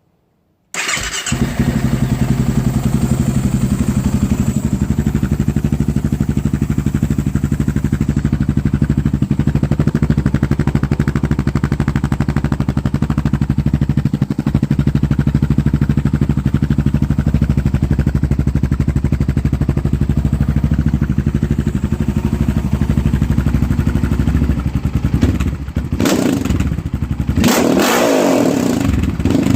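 2008 Honda TRX700XX ATV's single-cylinder four-stroke engine, through a Big Gun Evo R aftermarket exhaust, starting up suddenly about a second in and idling steadily. Near the end the throttle is blipped, the engine note rising and falling several times.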